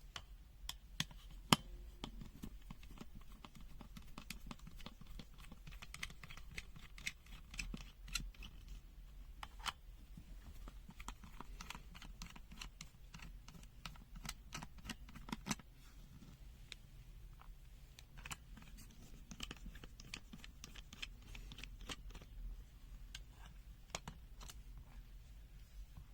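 Scattered light clicks and scrapes of a handheld multimeter's plastic case being handled and taken apart.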